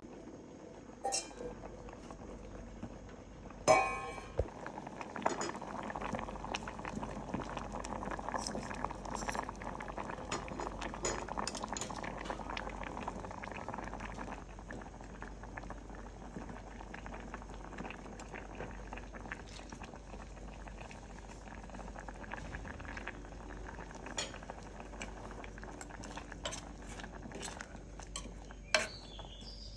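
Sour curry broth boiling in a stainless steel pot, a steady bubbling with scattered small clinks. A loud metal clank comes about four seconds in as vegetable chunks are tipped in from a steel bowl. Near the end a metal ladle clinks and scrapes against the pot while stirring.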